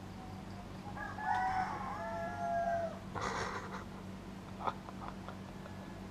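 A rooster crowing once, a single drawn-out cock-a-doodle-doo of about two seconds that drops in pitch at the end.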